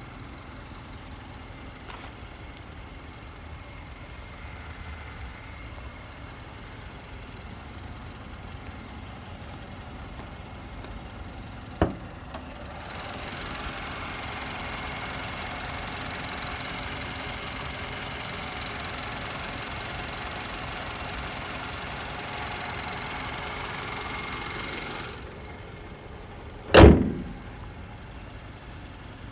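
Mazda 6 (GH) engine idling steadily after a timing chain replacement, with no chain rattle: the knock had come from a failed hydraulic chain tensioner. About thirteen seconds in, a louder hissing rush joins for about twelve seconds; near the end comes one loud thump, with two light clicks earlier.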